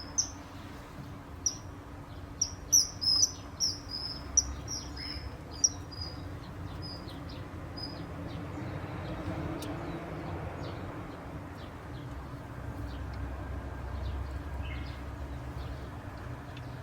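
Common kingfisher giving a rapid run of short, shrill high-pitched calls over the first six seconds or so, then only a few faint ones, over a steady low hum and rumble.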